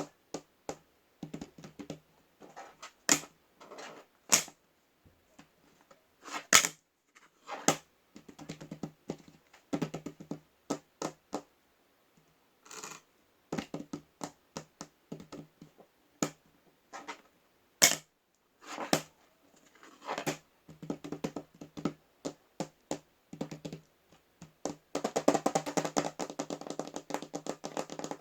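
Irregular tapping and clicking, like typing, with a fast dense run of taps near the end.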